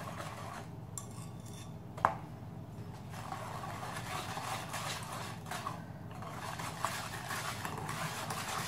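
Wire whisk beating a runny mix of eggs, sugar and melted butter in a mixing bowl, the wires scraping and clicking against the bowl, growing busier in the second half. A single sharp knock about two seconds in.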